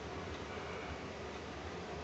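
Steady low hum and hiss of kitchen room tone, with no distinct events.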